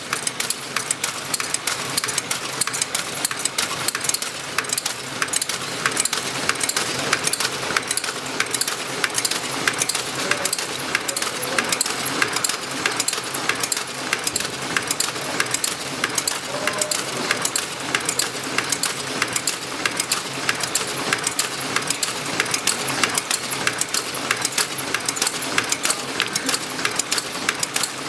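Tea packaging machine running, with steady, rapid, evenly repeating mechanical clicking from its working cycle.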